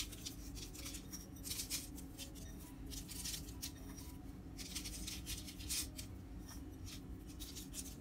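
Pinches of nigella and sesame seeds sprinkled by hand onto dough buns and baking paper: faint, scattered rustling bursts every second or so, over a low steady room hum.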